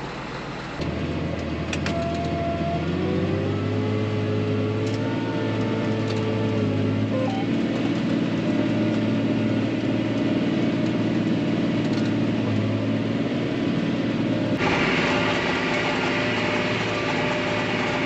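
Tractor engine under load, pulling a mulch finisher through the field; its pitch climbs over several seconds as it pulls up to working speed. Near the end the sound changes abruptly to a steady engine drone heard from inside the tractor cab.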